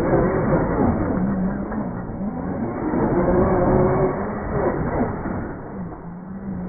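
Axial SCX6 RC crawler's brushless motor and geared drivetrain whining as it climbs over pipes, the pitch rising and falling several times with the throttle, over the rough noise of the tyres and chassis on the pipes.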